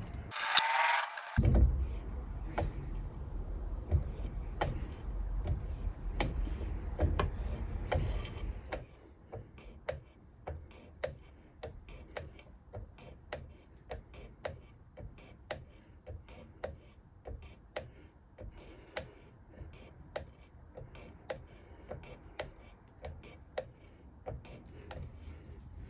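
Adept No. 2 hand shaper being worked stroke by stroke as it cuts metal, with a sharp click about every two-thirds of a second. A low rumble goes with the clicks until about a third of the way in, then only the even clicking carries on, quieter.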